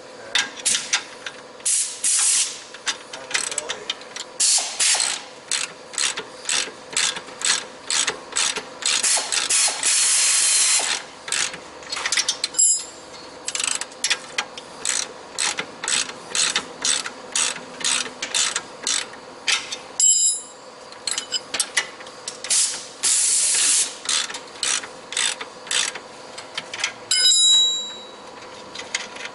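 Ratcheting wrench clicking in long runs of quick strokes as it turns a rear suspension bolt on a VW Golf Alltrack, with a few short pauses. Three times a bright, ringing metal clink sounds between the runs.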